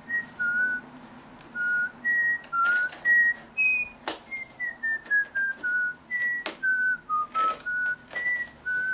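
A person whistling a slow tune in clear separate notes, some stepping down in pitch. Over it, a few sharp clicks of scissors cutting into the cardboard box, the loudest about four seconds in and another about two and a half seconds later.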